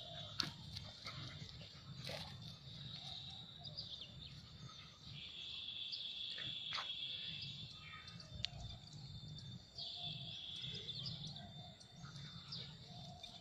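Faint open-air ambience: a high, steady trilling buzz, typical of insects or birds in the grass and scrub, swells for a few seconds from about five seconds in and again around ten seconds, over a low rumble, with a few faint taps.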